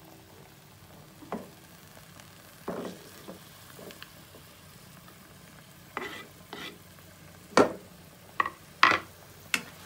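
Green beans and sliced red chillies frying in oil in a wok with a faint sizzle, while cooking tongs stir them and knock against the pan. The knocks are sparse at first, then come more often and louder in the second half.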